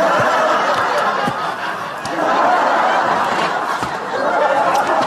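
A sitcom audience laughing loudly and at length, many voices together, easing slightly about two seconds in and then swelling again.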